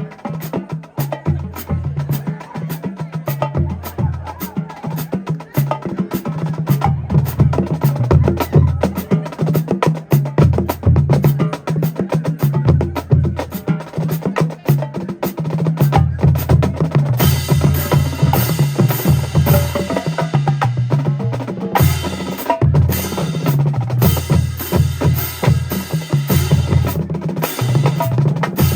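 A marching drumline playing a cadence: rapid snare strokes and rim clicks over tuned bass drums that play notes of different pitch. The playing grows fuller and brighter about two-thirds of the way through.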